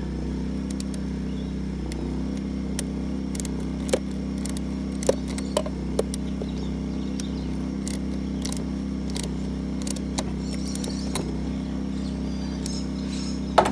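A small petrol generator running steadily, with a handful of sharp metallic clicks and clinks from a ring spanner and carburettor parts as the carburettor is bolted back on; the loudest click comes near the end.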